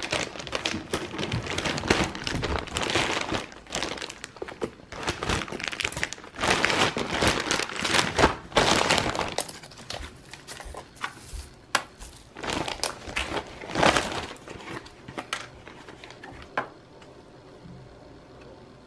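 Thin plastic mailer bag crinkling and rustling loudly as it is cut open with scissors and handled, easing off near the end to a few light clicks.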